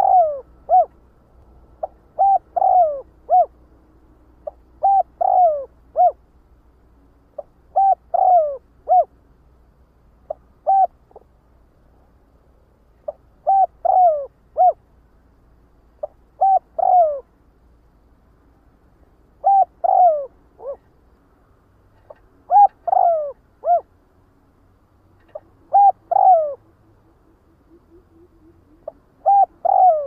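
Spotted dove cooing its flock call: short phrases of two to four low notes, each sliding down in pitch, repeated every two to three seconds.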